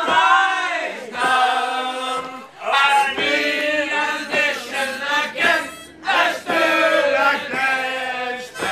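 A group of people singing together in chorus, with a harmonica playing along.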